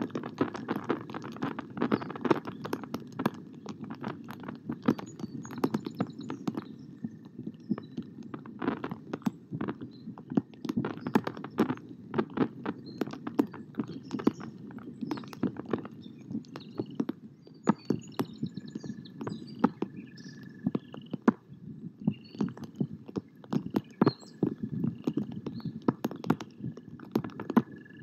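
Rain on the nest camera: irregular taps of drops hitting the camera housing and microphone over a steady hiss of rainfall.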